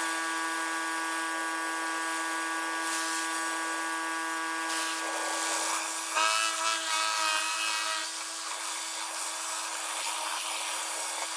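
Pressure washer running and spraying concrete: a steady high hum with a hiss of water spray over it. About six seconds in the sound wavers and grows louder for a couple of seconds, then settles back to the steady hum.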